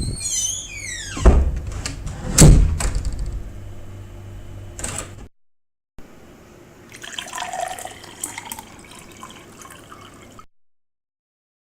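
Home-made sound effects: a high whistle falling steeply in pitch, then two heavy thumps, the second louder. After a brief dead-silent break comes a few seconds of irregular, splashing, water-like noise.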